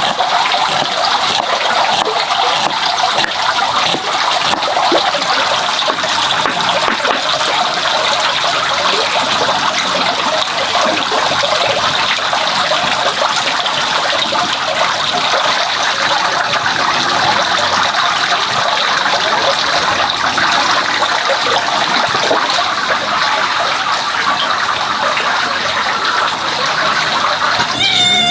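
Steady rush of running, splashing water that cuts off abruptly near the end.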